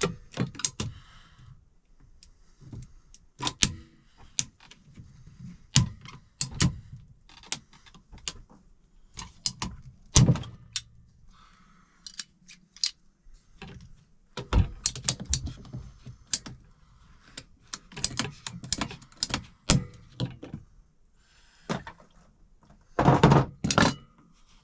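PVC condensate drain pipe and fittings being handled and pulled apart: sharp plastic clicks, knocks and clatter at irregular intervals, with a run of louder knocks near the end.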